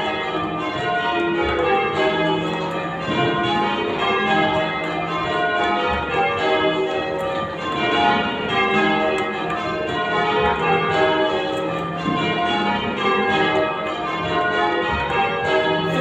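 Church bells being rung in change ringing: a continuous, overlapping stream of bell strokes in shifting order, heard from the ringing chamber beneath the bells.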